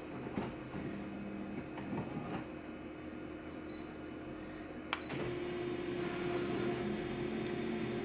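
Colour toner photocopier running: a low mechanical hum while the scan finishes, then a sharp click about five seconds in, after which the print engine starts up with a louder, steady hum as the machine stabilises the image before printing.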